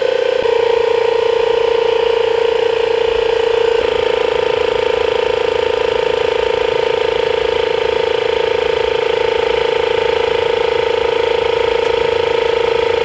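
Battery-powered air compressor of an IK eFoam Pro 12 foam sprayer running with a steady, even whir, pumping the tank up to pressure.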